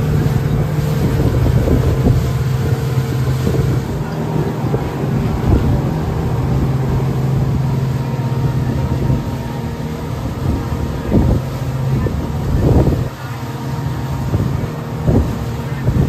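Motor of a small passenger ferry boat running steadily underway, a continuous low drone, with wind buffeting the microphone in gusts and the rush of the wake against the hull.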